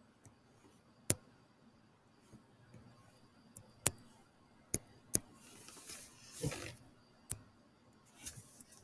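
Computer mouse clicking: about five sharp, irregularly spaced clicks, with a soft rustle in the middle.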